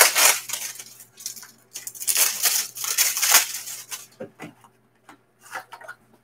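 Plastic wrapping on a pack of trading cards crinkling and tearing as it is opened by hand. The rustling is loudest in the first four seconds, then lighter crackles follow.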